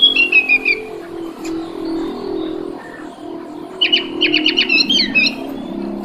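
Sooty-headed bulbul singing two short bursts of song: a phrase of falling notes right at the start, and a faster run of quick notes about four seconds in. A steady low hum runs underneath.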